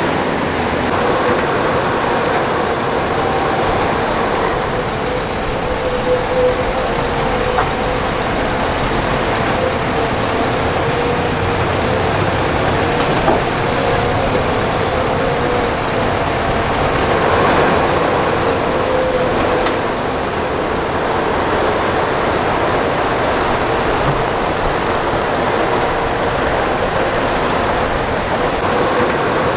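Crawler excavator's diesel engine running steadily under load as it digs and loads dirt, with a wavering whine over the engine noise and a few faint knocks.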